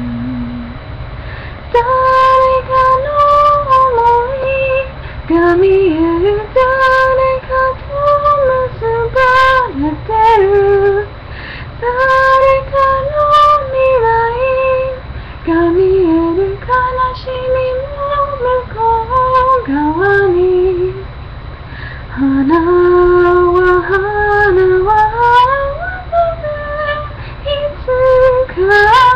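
A young woman singing a slow Japanese ballad solo and unaccompanied, in phrases with short breaths between lines, over a low steady hum from the webcam microphone.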